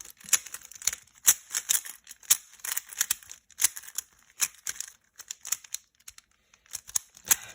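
A plastic puzzle cube being turned by hand: irregular clacking of its layers, with a pause of about two seconds near the end.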